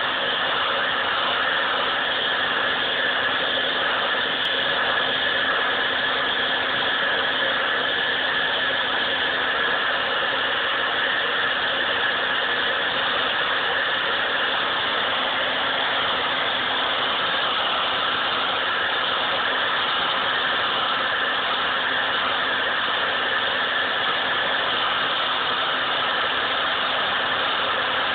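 Hair dryer running steadily: a constant rush of blown air over a steady motor hum.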